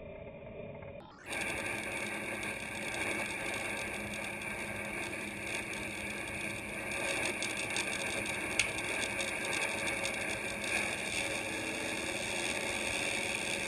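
Airboat engine and propeller running at a steady drone, starting abruptly about a second in. A single sharp crack cuts through it about eight and a half seconds in.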